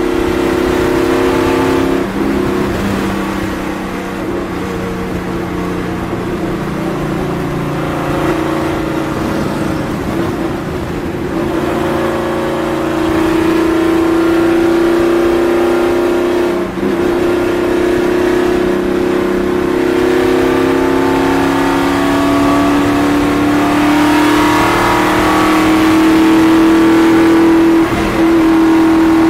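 NASCAR stock car's V8 engine heard from inside the cockpit, running hard at speed around an oval. The engine note climbs slowly through the second half, with brief dips about two seconds in, near the middle and near the end.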